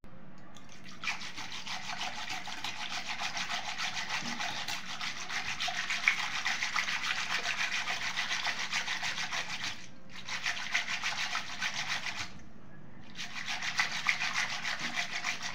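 A wire whisk is spun rapidly between the palms in a steel bowl of malai and water, giving a fast, scratchy swishing and rattling. This is cream being churned to separate the butter. The churning stops briefly twice, about two-thirds of the way through.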